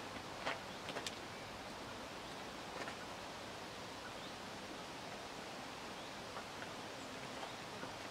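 Faint steady outdoor background hiss with a few soft steps on gravel, mostly in the first three seconds, from a horse and its handler walking.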